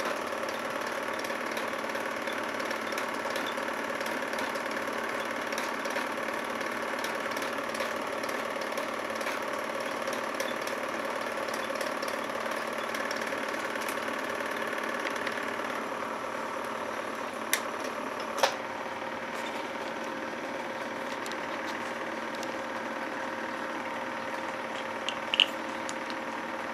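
Film projector running with a steady mechanical whir and hum. The whir drops slightly in level about two-thirds of the way through, and a few sharp clicks come near the end.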